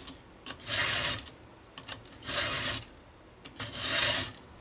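A flat file rasping across a chainsaw chain's teeth in a vise: three forward strokes about a second and a half apart, with light clicks of the file between strokes.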